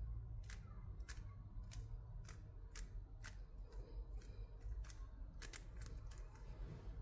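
Speed cube's layers being turned by hand through a J-perm algorithm, a faint click at each turn, roughly two a second and unevenly spaced, with a quick run of clicks about five and a half seconds in.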